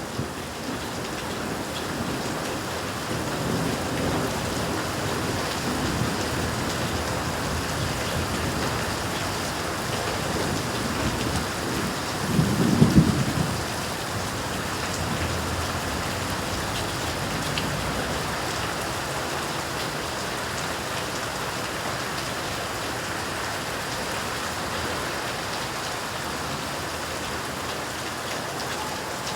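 Steady, heavy rain falling in a thunderstorm, with a short, loud rumble of thunder about halfway through.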